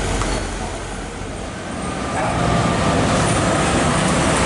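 Heavy truck's engine running close by, with road noise, growing louder about two seconds in.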